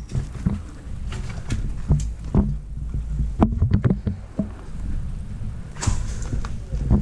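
Movement and handling noise on a body-mounted action camera: a low rumble with scattered sharp clicks and knocks, including a quick cluster of clicks partway through.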